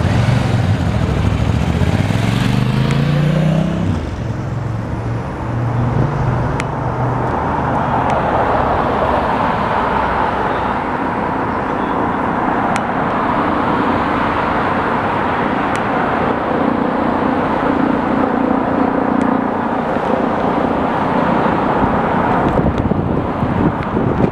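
A motor vehicle's engine rising in pitch as it accelerates over the first four seconds, then steady roadside vehicle noise with a continuous hiss.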